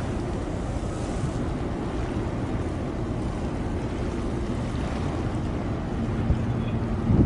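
Steady low rumble of a ship's engine and moving water, with wind buffeting the microphone.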